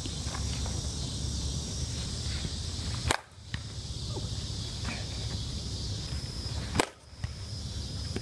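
Softball bat striking the ball twice, about 3.7 seconds apart, each hit a single sharp crack over a steady background hiss.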